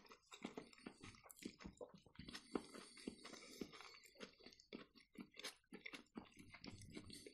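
Quiet close-up chewing, with many small irregular wet mouth clicks and smacks.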